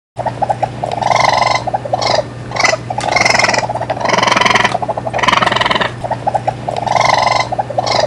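Raccoon chittering: a series of short, rapidly pulsed trills, one after another about once a second, over a steady low hum.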